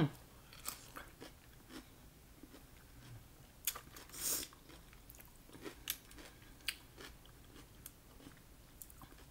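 Close-miked chewing with scattered small clicks, and a brief clatter about four seconds in as cooked mussel shells are handled.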